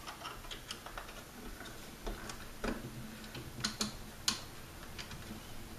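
Irregular small clicks and taps of metal parts and a small screwdriver on the tube chassis of a B&K Precision E-200D RF signal generator as it is worked into a tight-fitting cabinet. A few sharper clicks come in the middle of the stretch.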